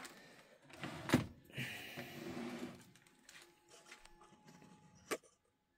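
Faint handling noises: a soft knock about a second in, a brief rustle around two seconds, and a sharp click just after five seconds, after which the sound cuts off suddenly.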